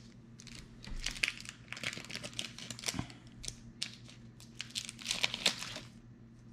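Foil Pokémon booster pack wrapper being torn open and crinkled by hand, a run of sharp crackles that dies down near the end.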